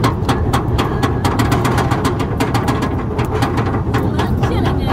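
Georgia Scorcher roller coaster's chain lift hauling the train up the lift hill: a rapid, even clicking of the anti-rollback, about seven or eight clicks a second, over a steady low rumble of the chain.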